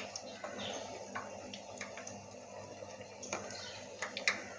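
Potato-and-egg pakoras sizzling in hot oil, a steady sizzle with scattered crackles and pops, as a steel spoon ladles oil over their tops. A sharper click near the end.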